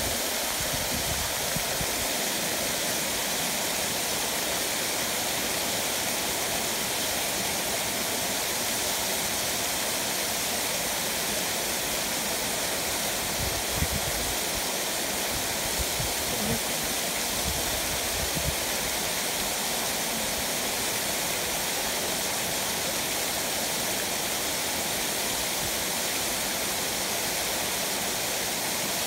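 Thin waterfall splashing down a rock face onto boulders: a steady rushing hiss. A few brief low bumps come about halfway through.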